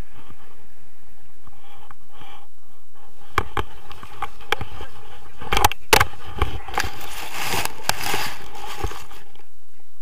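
Wind rushing over a paraglider pilot's action-camera microphone, then from about three and a half seconds in a run of knocks and scraping as the tandem harness touches down and drags through grass. The knocks are loudest around six seconds, followed by a couple of seconds of dense rustling and scraping before it eases off.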